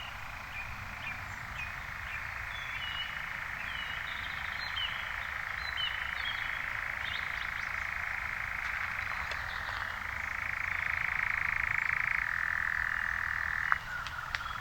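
European nightjar churring: one long, unbroken mechanical trill that steps up in pitch about two-thirds of the way through, drops back soon after, and stops shortly before the end. Faint short chirps sound above it.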